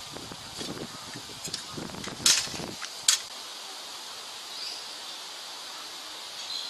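Outdoor ambience with a steady high hiss, low rustling for the first three seconds or so, and two sharp clicks a little under a second apart near the middle.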